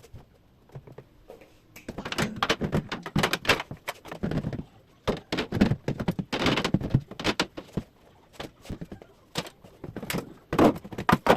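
Clatter and thunks of items being pulled out of a refrigerator and set down, in three busy spells with short pauses between.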